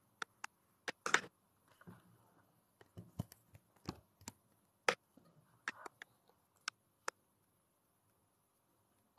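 Irregular sharp clicks and pops, about a dozen scattered through, with faint muffled voice sounds briefly between them, heard over a live video-call audio line.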